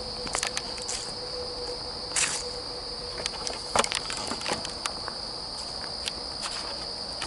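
Crickets trilling in a steady, continuous high-pitched chorus, with a few scattered soft clicks and rustles.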